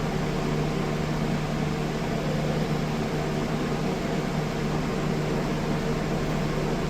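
A steady machine hum with an even hiss underneath, running unchanged throughout.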